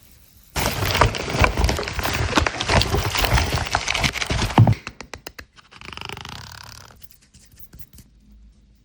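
Packaging being opened by hand: several seconds of loud crinkling and tearing, then a few sharp clicks and a brief softer rustle.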